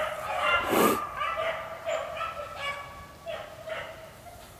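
A pack of beagles baying on a rabbit's trail, their repeated calls fading toward the end, with one sharper, louder call just before a second in.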